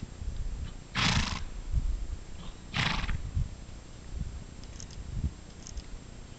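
Curly horse gelding snorting twice, about two seconds apart: each a short, rushing blow out through the nostrils. Dull hoofbeats on sand sound underneath as he walks.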